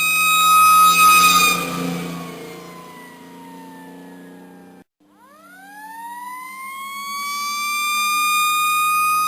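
Police siren holding a steady high wail, then sliding down in pitch and fading over about three seconds until it cuts out about five seconds in. It then climbs back up to the high pitch and holds it.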